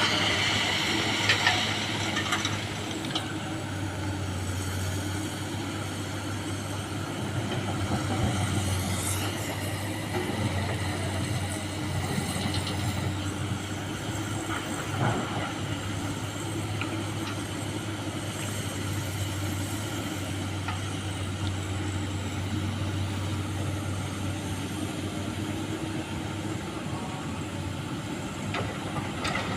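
Excavator's diesel engine running steadily at work, with a couple of short knocks.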